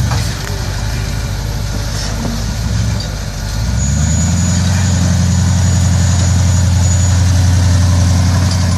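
Four-wheel-drive vehicle's engine working on a rock obstacle, then revved up about four seconds in and held at steady higher revs as the driver gives it throttle to climb.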